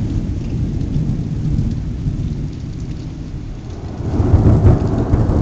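Thunderstorm: steady rain with a low rumble of thunder, which swells much louder about four seconds in.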